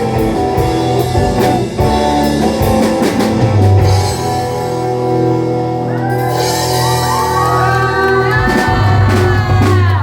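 Live rock band playing, with electric guitar, drums and a singer. Drum hits run through the first few seconds, then the band holds a long final chord under a sustained sung note, and everything stops together at the very end.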